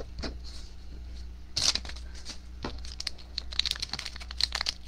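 Foil wrapper of a Trilogy hockey card pack crinkling and crackling as it is handled, in irregular bursts that grow denser near the end, with a light tap of cards on the table at the start.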